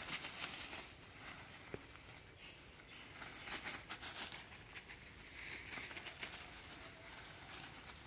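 Faint, irregular rustling and crackling of dry leaf litter and twigs, in scattered clusters of small clicks, thickest at the start and again about halfway through.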